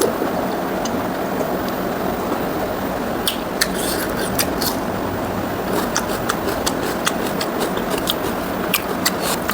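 Close-up eating sounds: wet mouth clicks and smacks while chewing pork ribs and rice, scattered and irregular, over a steady background hum.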